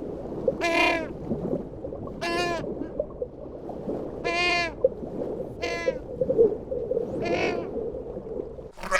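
Livestock bleating: five wavering calls, each about half a second long, roughly every one and a half seconds, over a steady low background rustle.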